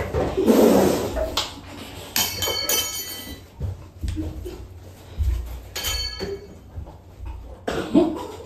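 People scrambling and dodging in a small room: thumps and scuffling movement with short bursts of voices.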